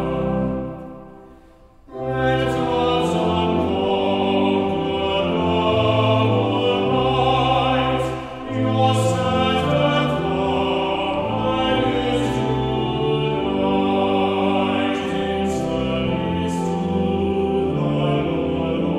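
A hymn sung by a choir over a sustained instrumental accompaniment with held bass notes. The music dies away about a second in and starts again two seconds in.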